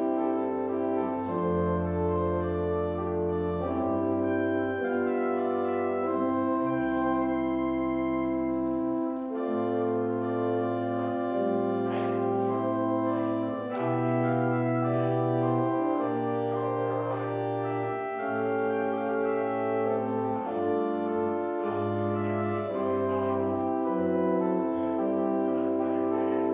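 Organ music: slow, held chords over sustained low bass notes, the harmony changing every second or two.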